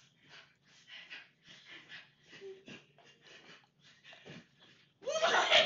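Faint breathy laughter and breathing in quick short bursts, then loud laughter breaking out near the end.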